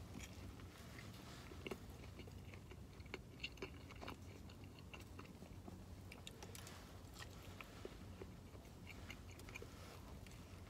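A person biting into and chewing a steak sandwich on a soft bun: faint, with scattered small clicks.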